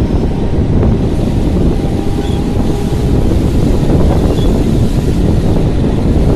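Wind buffeting the microphone at the open door of a moving electric local train, over the steady running noise of the train on the track.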